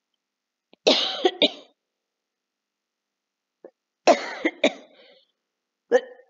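A woman coughing in two short fits of a few sharp coughs each, about a second in and about four seconds in, with another fit starting near the end.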